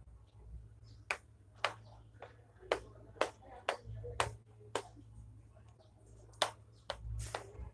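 A knife blade cutting through pressed lentil paste for dhoka and clicking against the plate beneath, a series of sharp clicks about two a second with a short pause about five seconds in.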